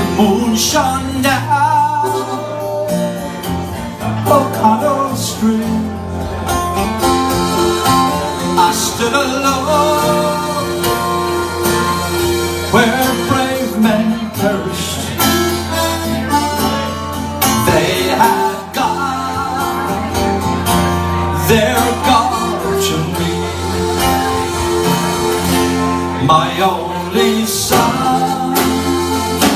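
Live traditional band: button accordion and strummed acoustic guitar with a snare drum played with bundled rods, and a man singing.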